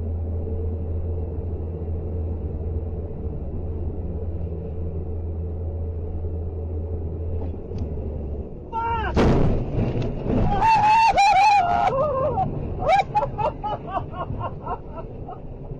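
Steady low engine drone inside a truck cab, then about nine seconds in a sudden loud burst of noise followed by wavering high-pitched tyre squeals in short bursts as a car ahead skids out of control, throwing up tyre smoke.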